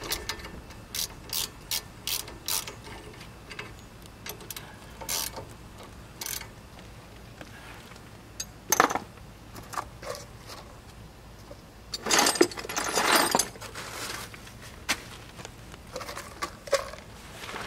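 Hand ratchet wrench clicking in short strokes as a 10 mm fastener is turned, with scattered clicks after, and a longer, denser run of clicking about twelve seconds in.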